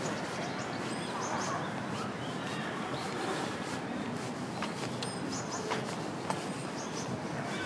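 Outdoor ambience: steady background noise with brief high bird chirps about three times and a few faint clicks.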